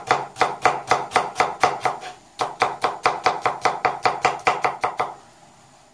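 Kitchen knife chopping an onion on a plastic cutting board: quick, even strokes about five a second, with a brief pause about two seconds in, stopping shortly before the end.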